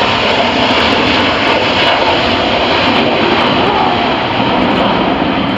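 Airbus A350-1000's two Rolls-Royce Trent XWB-97 turbofans at takeoff thrust: a loud, steady jet rush as the airliner climbs out just after lift-off.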